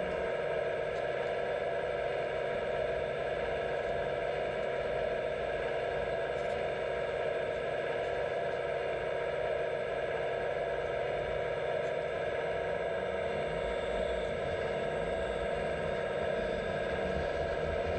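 Hydraulic pump of an RC Liebherr A918 model excavator whining steadily while the machine lifts and moves a concrete wall element, its pitch and level holding constant throughout.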